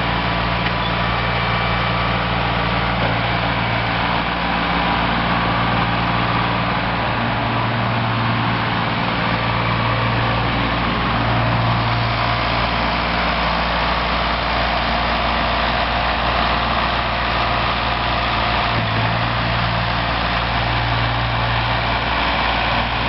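Ford 1910 compact tractor's three-cylinder diesel engine running steadily at low speed as the tractor is driven, its low hum swelling and easing slightly.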